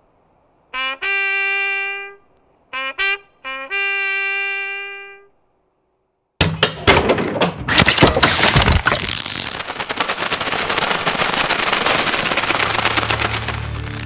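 A bugle call of two alternating pitches, short low notes leading into two long held high notes. About six seconds in, a sudden loud burst of rapid gunfire breaks out and keeps going.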